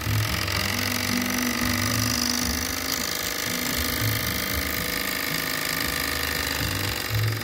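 Jensen Model 65 toy steam engine running steadily on live steam, its flywheel turning fast with a continuous mechanical chatter.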